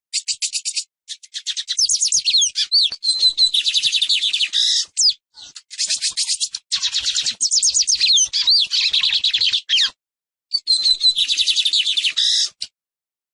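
Lined seedeater (Sporophila lineola) singing: long runs of rapid, high chattering notes mixed with short whistled slurs, broken by brief pauses, and stopping shortly before the end.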